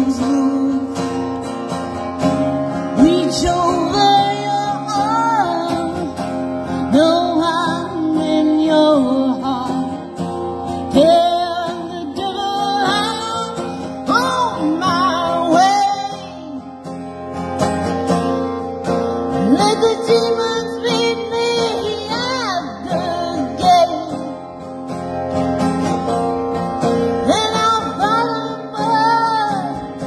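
A woman singing a slow song, accompanying herself on a strummed acoustic guitar; her sung notes waver and bend, with short breaks between phrases.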